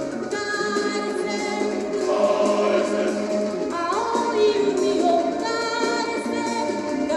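Background song with a choir of voices singing over instrumental backing.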